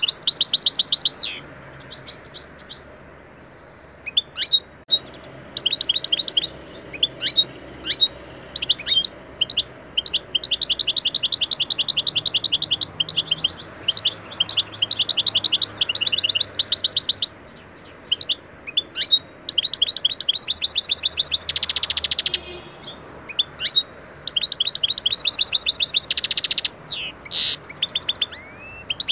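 European goldfinch singing: long runs of fast, evenly repeated high notes mixed with quick rising and falling whistled notes and a few buzzy phrases, with a short pause a couple of seconds in.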